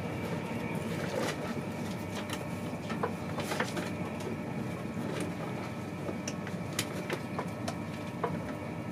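Inside a moving InterCity 225 passenger coach: a steady rumble of the wheels on the track, with irregular clicks and knocks from the running gear and the coach.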